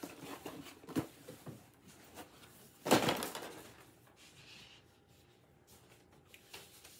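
Objects being handled while a desk is cleared out: light knocks and rustling, with one louder bump about three seconds in.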